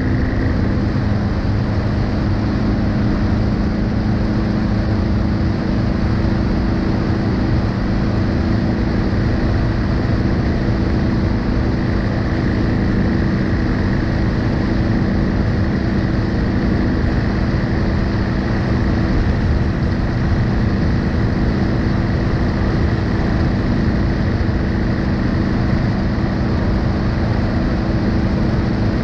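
BMW R1250GS Adventure's 1254 cc boxer-twin engine running at a steady cruising speed, a constant hum mixed with wind and road rumble on the front-mounted action camera's microphone.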